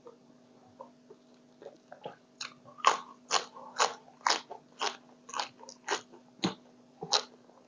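Close-up crunching of crisp raw cos lettuce being chewed. After about two seconds of quiet chewing, the crunches come steadily, about two a second.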